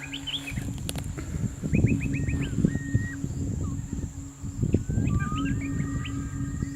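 Bird calls: quick runs of four or five short rising chirps, with a few longer level whistles, over a low pulsing hum.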